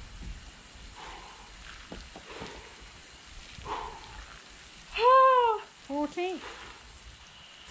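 A woman's vocal sounds of exertion during a dry-land backstroke exercise. Faint short puffs of breath are followed about five seconds in by a loud pitched cry that rises and falls, then two short, lower grunts.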